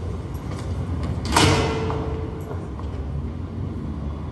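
City street traffic from a film soundtrack played over loudspeakers: a steady low rumble, with a sudden loud hiss about a second in that fades within half a second.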